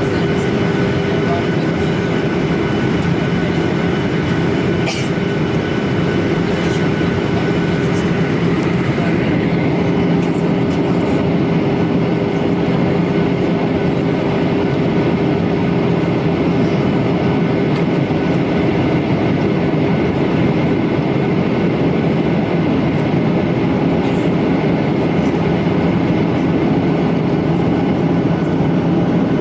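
Steady cabin drone of a Boeing 737-900ER in flight: CFM56-7B engine noise and airflow rush with a constant low hum.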